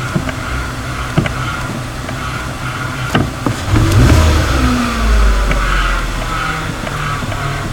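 Car engine idling with the clutch pedal pressed, the clutch release (throw-out) bearing making a noise that changes about four seconds in as the pedal is pushed harder. The noise is the sign of a worn release bearing.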